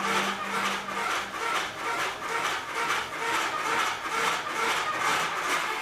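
Hand-held turning tool cutting wood spinning on a foot-treadle lathe: rhythmic scraping shaves, about two a second, following the back-and-forth strokes of the treadle.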